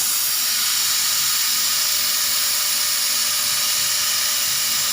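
CNC laser cutting machine running while it cuts 3 mm melamine plywood, giving a steady high hiss with no breaks.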